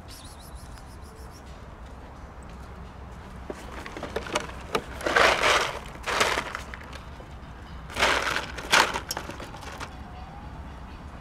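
Dry cat food being handled in a thin plastic bottle: scattered clicks of kibble, then two loud bursts of plastic crinkling with pellets rattling, about five and eight seconds in.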